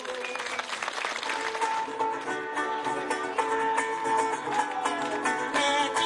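Venezuelan calypso band starting a song as the audience applauds, the clapping most prominent in the first second or so before the music takes over.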